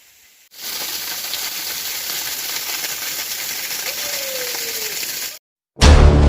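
Steady rush of a waterfall, starting about half a second in and cutting off abruptly near the end, where background music begins.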